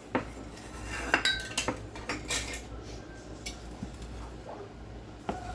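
A spoon clinking and scraping against a pot as the vinegar pickling brine is stirred, with several irregular sharp clinks.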